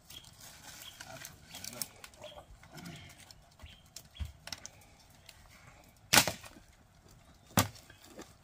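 Wooden branches being broken up for firewood: small cracks and crackles, then two loud snaps about a second and a half apart near the end.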